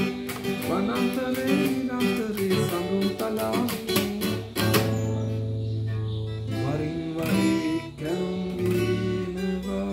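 Acoustic guitar playing a song: strummed chords and picked notes, with one chord left ringing about halfway through.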